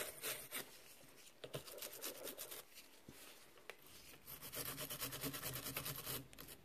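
Nylon-bristled nail dust brush scrubbing filing dust off a freshly filed gel nail in quick back-and-forth strokes, briefly at the start and again from about four seconds in, quieter in between.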